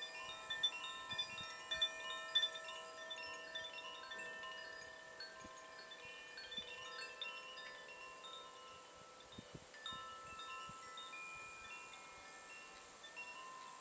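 Chimes tinkling softly: many scattered ringing notes at random, busiest in the first few seconds and thinning out after, over a steady high hiss.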